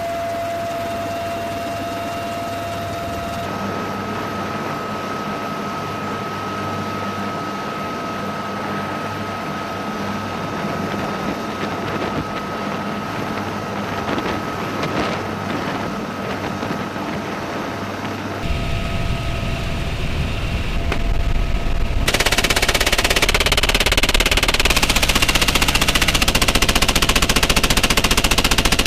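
Helicopter-mounted Gatling gun firing rapid bursts over a steady turbine whine. The sound changes abruptly twice, getting heavier and then much louder in the last quarter, where the rattle is continuous.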